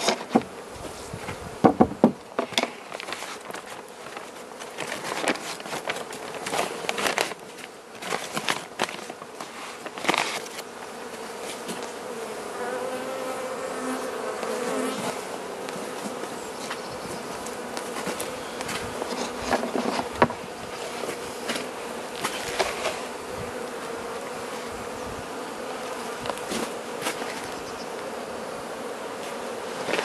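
Carniolan honey bees buzzing around an opened hive: a steady hum with wavering tones as single bees fly close past now and then. Scattered sharp knocks and clicks of the wooden hive parts being handled and the lid put on, the loudest about two seconds in.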